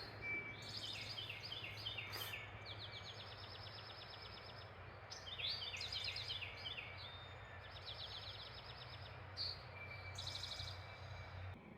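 Songbirds singing outdoors: runs of quick repeated high notes, some stepping down in pitch, in two spells, over a steady low hum and a faint even hiss.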